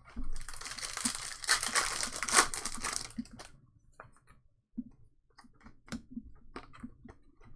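A trading card pack wrapper being torn open and crinkled for about three seconds, followed by a scatter of light clicks and taps as the cards are handled.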